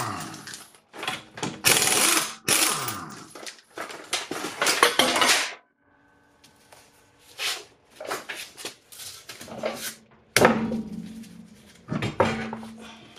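A power tool on a 19mm deep socket, spinning the lug nuts off a car's front wheel. It runs in short repeated bursts with pauses between them.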